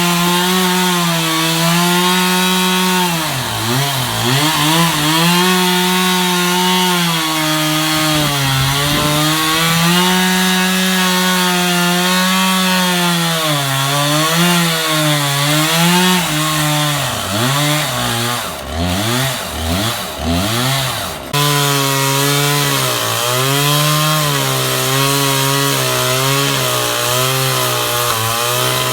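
Sears Craftsman chainsaw running and cutting wood, its engine note dipping repeatedly and recovering as the chain works through the cut. About two-thirds of the way through it settles into a steadier, lower note.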